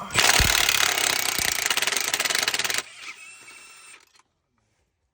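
Impact wrench hammering rapidly as it breaks loose a Duramax flywheel bolt, for almost three seconds. It then drops to a fainter whir and stops about a second later.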